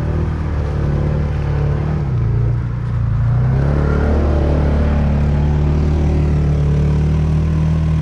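Quad bike (ATV) engine running under load. Its pitch dips about two seconds in, climbs back, then holds steady and a little louder.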